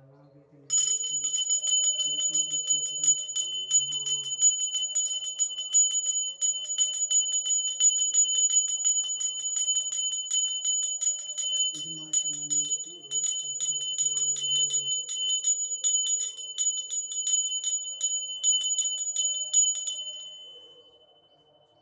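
A puja hand bell (ghanti) rung rapidly and continuously, struck many times a second. It starts about a second in and goes on for about twenty seconds, then stops and rings out, fading near the end. Faint voices sound beneath it.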